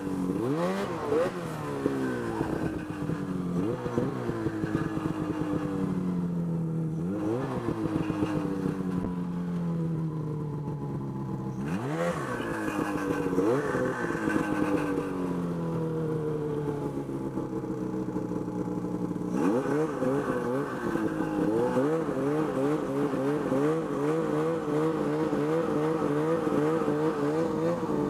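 Ski-Doo Summit X snowmobile's two-stroke 800 engine revving up sharply several times under throttle and easing off slowly between, then held at higher revs with a quick, even wobble in pitch, about two a second, through the last third.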